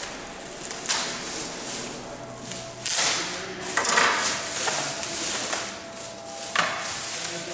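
Handling noises: several sharp knocks and clatters with rustling and scraping between, as the unpacked soundbar equipment and its packing are moved about.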